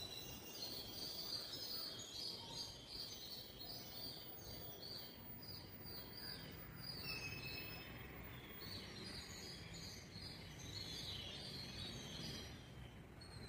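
Birds chirping and singing in the surrounding trees, many short repeated calls with one longer falling note about halfway through, over a faint steady outdoor background hum.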